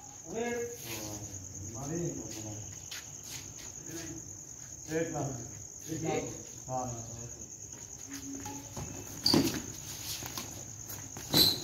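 Crickets chirping in a steady, high, continuous chorus. Near the end, two sharp strikes of a badminton racket on a shuttlecock, about two seconds apart.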